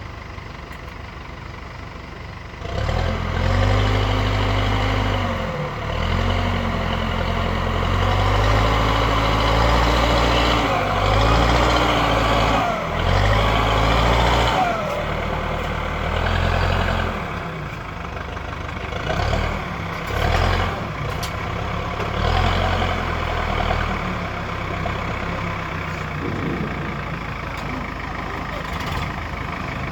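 Heavy diesel engines of a stuck farm tractor and a backhoe loader pushing it, running low for the first few seconds and then revved hard under load from about three seconds in, the pitch rising and falling repeatedly before settling to a lower, uneven run in the second half.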